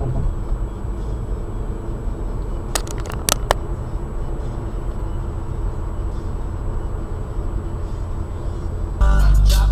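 Steady low road and engine drone inside a moving car's cabin, as picked up by a dashcam, with a short cluster of sharp clicks about three seconds in. Music with a heavy beat cuts in near the end, louder than the drone.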